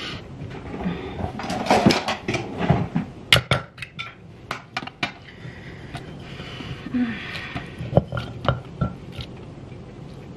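Wooden pestle and clay mortar: irregular clatter and a handful of sharp separate knocks as dried chillies and other curry-paste ingredients are dropped into the mortar and the pestle goes in, not yet a steady pounding.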